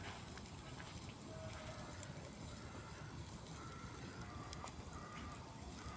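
Wood campfire crackling faintly, with scattered small pops, alongside a few short, faint high notes.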